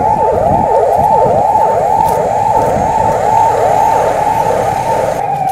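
Emergency vehicle siren in its fast yelp, the tone sweeping rapidly up and down about three times a second. Near the end it changes to a slow, falling wail.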